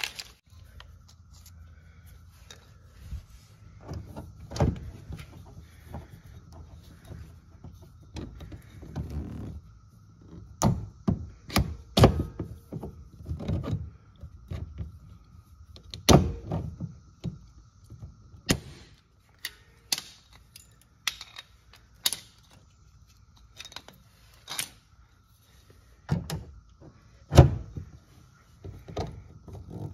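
Hand pop-rivet gun being worked to set blind rivets: irregular sharp clicks and clacks as the handles are squeezed, with snaps as the mandrels break off, among knocks from handling tool and parts.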